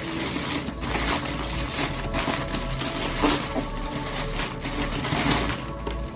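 Plastic packaging crinkling and rustling without a break as a plastic mailer bag and the plastic-wrapped item inside it are handled and pulled apart.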